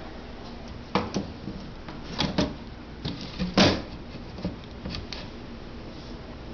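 A series of scattered knocks and clunks from objects being handled and bumped, about seven in all, the loudest about three and a half seconds in.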